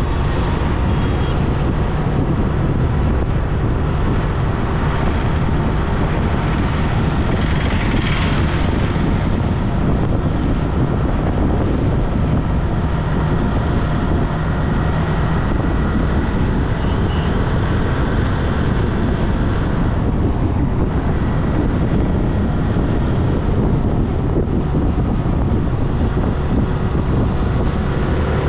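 Car driving on a highway: a steady low rumble of engine and tyre noise, with a brief rise in hiss about eight seconds in.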